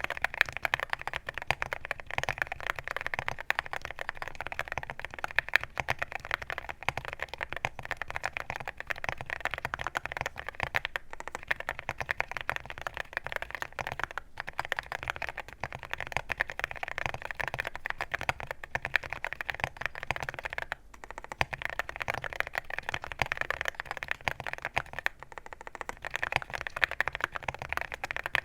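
Fast, continuous typing on an hi75 mechanical keyboard with 55 g Aqua King switches: a dense run of keystrokes with a few brief pauses.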